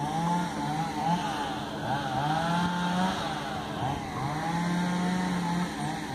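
Small boat's outboard motor running steadily, its pitch wavering up and down.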